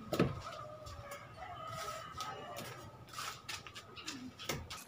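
Steel trowel knocking and scraping on a mortar hawk while cement plaster is worked onto a window frame, with a sharp knock near the start. A rooster crows in the background.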